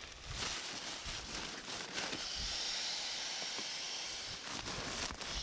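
Air hissing steadily out of a nylon pump sack into a sleeping pad as it is inflated, after a couple of seconds of fabric rustling and handling knocks.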